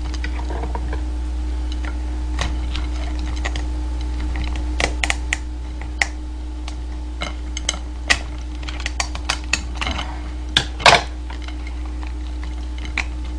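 Kitchen scissors snipping through the shell and legs of a soy-marinated raw crab, and the shell cracking as it is pulled apart by hand. The clicks are sharp and irregular, over a steady low hum.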